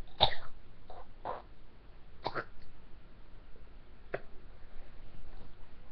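A girl's short gagging and coughing noises, four separate bursts with the first the loudest, as she chews bitter mandarin peel that burns her mouth.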